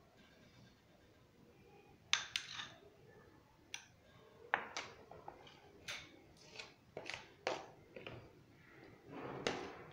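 A spoon tapping and scraping against a small dish as cocoa cake batter is scraped out, about a dozen sharp, irregular clinks, with a louder knock near the end.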